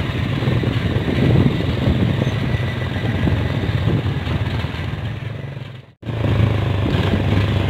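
Motorcycle engine running steadily while riding along a rough dirt track, cutting out abruptly for a moment about six seconds in and then running on.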